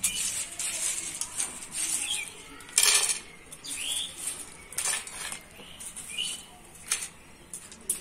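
Crisp sun-dried potato slices rustling and clicking as they are swept together by hand on a cotton cloth and scooped into a plate. The loudest rustle comes about three seconds in, with shorter ones near five and seven seconds.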